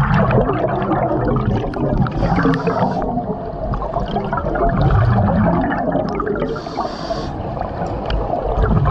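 Diver breathing inside a surface-supplied diving helmet: a short hiss of air on each of two inhales, about two and six and a half seconds in. Exhaled bubbles gurgle and rumble in between.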